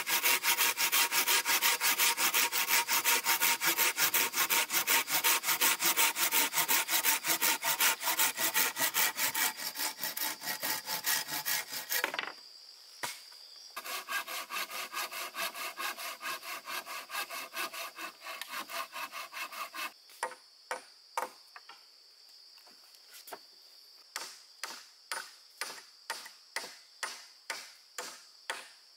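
Hand saw cutting wood in quick, even strokes. It stops briefly about twelve seconds in, then resumes, and in the last third the strokes come slower and more separately.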